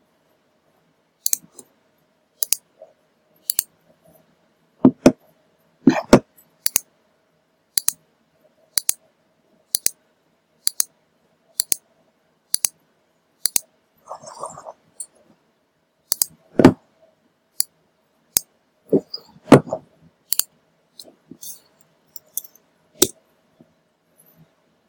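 Sharp ticks at an even pace of about one a second, with a few heavier knocks in between, the loudest about two-thirds of the way in; a faint steady hum lies underneath.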